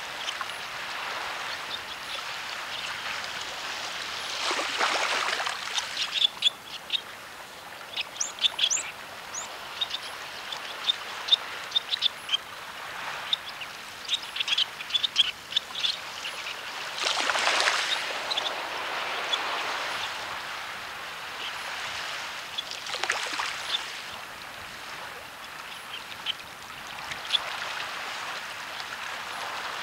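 Small waves lapping and washing on a stony shore in a steady hiss that swells three times. Many short, high ticks and chirps are scattered over it, thickest through the middle.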